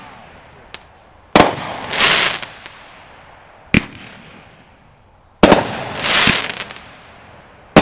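Hot Rocket 'Stockade' firework going off shot by shot. Each shot is a sharp bang followed by a hissing swell that fades within about a second. Three shots come roughly two seconds apart, with a single extra crack between the first two.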